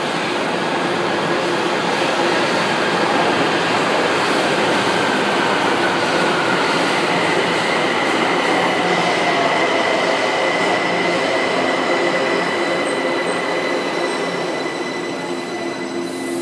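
São Paulo Metro trains running through an underground station: a loud, steady rush of wheels on the rails. Thin whining tones ride on top, one falling in pitch over the first few seconds and a high, steady whine from about seven seconds in.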